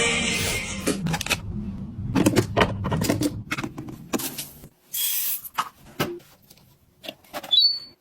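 Irregular clicks and knocks of household objects being handled, with a short hiss about five seconds in.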